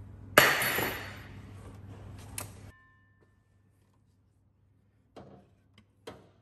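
Aluminium cylinder head of a 1.8 F18D4 engine being rocked loose and lifted off the block: a sudden loud metallic scrape and clunk about half a second in that dies away over about a second, with a sharp click just after two seconds. It then cuts to near silence, with two light knocks near the end.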